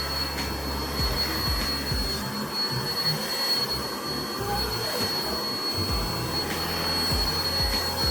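A steady electric motor running continuously, like a household appliance, with a thin high whine over an even rushing noise.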